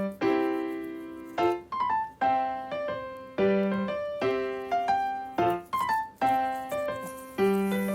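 Background piano music: a light melody of single notes that start sharply and fade, the same short phrase repeating about every four seconds.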